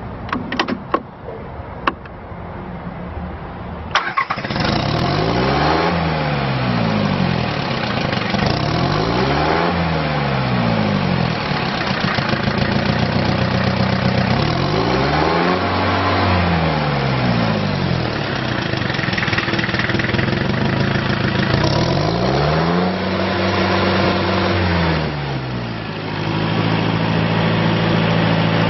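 Small diesel utility tractor engine: a few clicks, then it starts about four seconds in and runs, revved up and back down several times.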